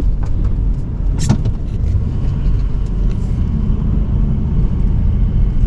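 Pickup truck driving on a snow-packed road, heard from inside the cab: a steady low engine and road rumble, with a sharp click about a second in.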